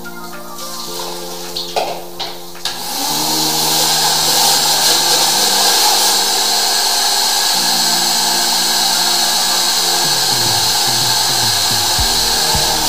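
Wet-and-dry suction vacuum switched on about three seconds in, drawing through a corrugated hose held to a blocked urinal and making a loud, steady rushing hiss, over background music.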